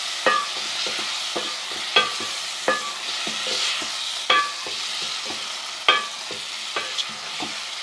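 A spoon stirring yogurt into green chillies frying in ghee: the spoon clinks against the pan every second or so, each clink ringing briefly, over a steady sizzle.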